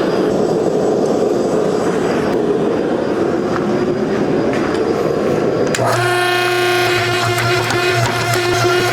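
Steady rushing noise of smithy machinery; about six seconds in, a steady machine hum starts and keeps going.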